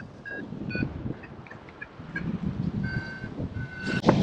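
Paraglider variometer beeping in short tones that shift in pitch, the beeps growing longer toward the end, over wind noise on the microphone. A sharp knock comes about four seconds in.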